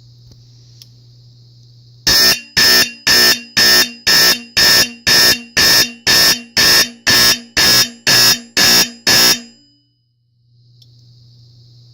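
Fire-Lite fire alarm horn sounding in even buzzy pulses, about two a second. It starts about two seconds in and stops after some fifteen blasts.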